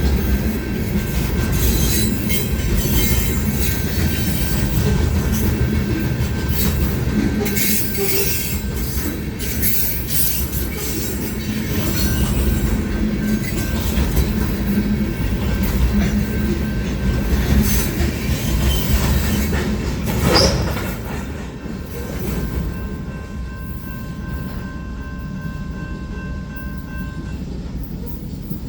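Freight cars of a long CSX mixed freight train rolling past, with a steady rumble, rattling clatter and wheel squeal. A brief loud screech comes about 20 seconds in, then the rumble drops to a lower, steadier level.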